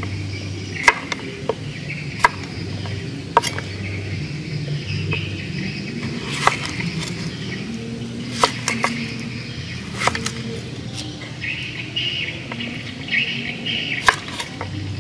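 Cleaver cutting a cucumber lengthwise on a wooden cutting board: irregularly spaced sharp knocks of the blade striking the board, about eight in all, with quieter slicing between them.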